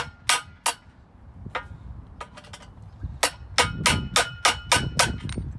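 Claw hammer tapping the handle of a screwdriver to drive the crank-mechanism pin through a Treasure Garden AKZ umbrella's metal pole, with a short metallic ring after each tap. A few spaced taps come first, then a quicker run of about a dozen taps, roughly four a second, in the second half.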